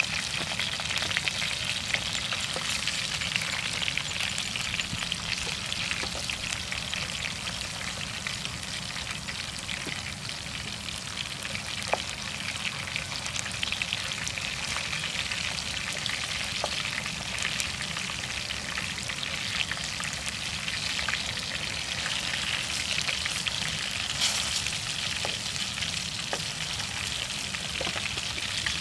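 Meat-wrapped vegetable rolls frying in hot oil in a nonstick pan: a steady sizzle and crackle with a few sharper pops and clicks.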